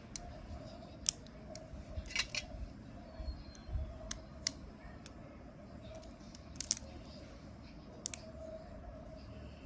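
Magnetic construction-toy rods clicking onto steel balls as an icosahedron frame is snapped together: a scattered series of sharp clicks, several in quick pairs.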